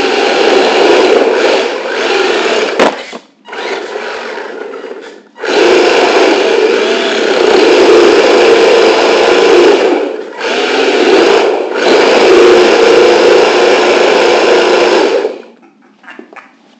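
Electric motor and gear drive of a radio-controlled drift car whining loudly as it drives, heard from a camera mounted on the car. It cuts out briefly about three seconds in, starts again about five seconds in with two short dips, and stops about fifteen seconds in, leaving a few faint clicks.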